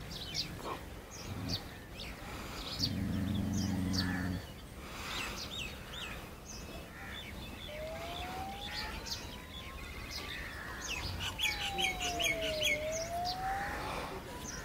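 Small birds chirping and twittering, with quick runs of repeated chirps thickest about two-thirds of the way through. A steady low hum lasts about a second and a half near the start. Later a smooth tone slowly rises, falls and rises again over several seconds.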